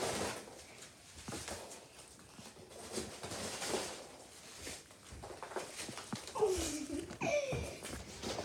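Faint scattered rustling and light thumps of foam packing peanuts being scooped up and footsteps on carpet, with a child's voice giving two short sliding cries near the end.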